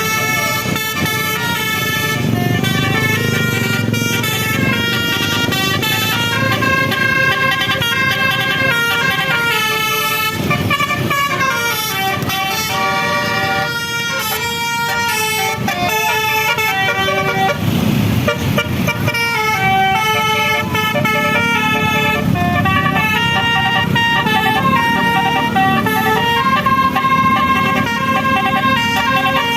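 Telolet bus horn, a multi-tone musical horn, playing a long run of quickly changing notes as a tune, with a short break in the melody around three quarters of the way through. The bus engine runs low underneath.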